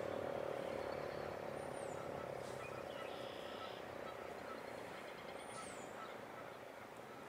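Federal Signal Model 7 eight-port mechanical siren, its steady low tone dying away at the end of an Attack test signal. Short high bird chirps sound over it.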